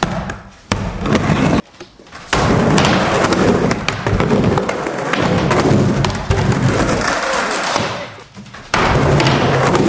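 Skateboard dropping in on a wooden mini ramp, with a sharp knock at the start, then the wheels rolling and clattering over plywood and concrete with repeated heavy thuds of the board and rider hitting the ramp and floor.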